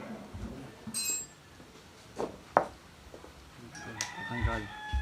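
A rooster crowing, one long held call starting near the end, after a few short knocks and clicks earlier on.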